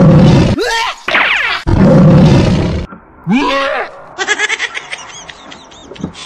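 A loud lion roar, dubbed in for the fake lion, comes twice in the first three seconds, followed by a sliding animal cry. From about four seconds in, a rapid high-pitched snickering laugh begins.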